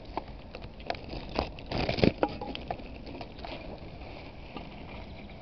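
Handling noise on a handheld camera's microphone: scattered clicks and rustles, with one loud rough burst about two seconds in, as the camera is swung around.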